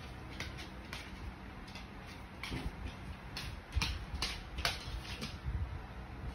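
A corgi's claws clicking irregularly on a laminate wood floor as it walks about and settles down, with a cluster of sharper clicks from about three to five seconds in.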